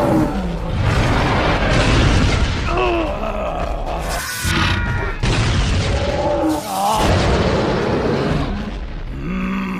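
Cartoon battle sound effects: a dense, loud din of booms and blasts, with short vocal cries and grunts now and then.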